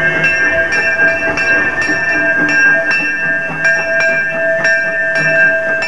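Steam locomotive's bell ringing steadily, struck about twice a second, as the engine rolls past, with the train's running sound underneath.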